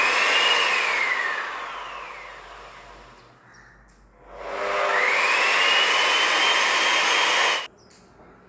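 Electric wall putty sanding machine (Asian Paints) running free with its pad in the air. Its motor whine rises as it spins up, then falls away slowly as it coasts down. About four seconds in it spins up again and holds a steady high whine, which cuts off abruptly near the end.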